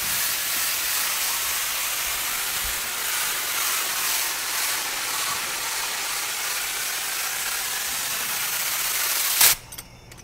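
Compressed-air siphon-cup spray gun spraying solvent contact adhesive: a steady loud hiss that cuts off suddenly near the end.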